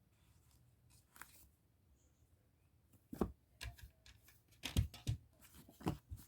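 Plastic CD jewel case being handled: a scattering of short clicks and clacks with light rustling, the loudest a few seconds in.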